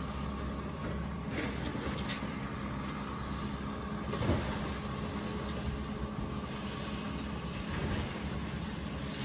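Heavy demolition machinery's engine running steadily while tearing down a building, with a few knocks, the loudest about four seconds in.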